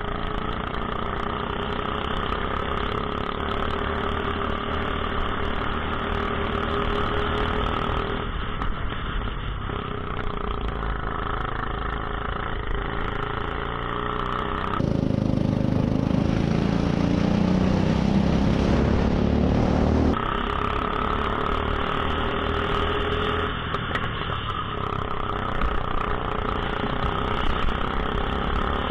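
Rental go-kart engines running on track, heard from onboard: a steady, continuous engine note. About fifteen seconds in the sound turns louder and deeper for some five seconds, then drops back.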